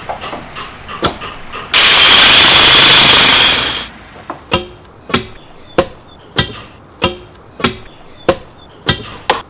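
A loud burst of hiss lasting about two seconds, then sharp knocks repeating evenly about one and a half times a second, some with a short ring.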